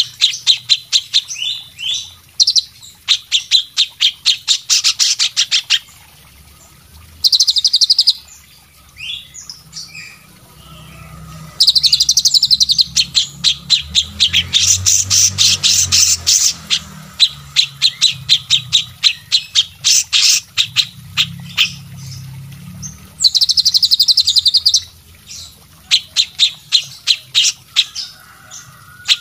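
Songbirds singing from a mixed track of cucak cungkok, kapas tembak, cililin and cucak jenggot calls, in fast runs of sharp, high repeated notes. Denser, chattering bursts come about seven, twelve and twenty-three seconds in.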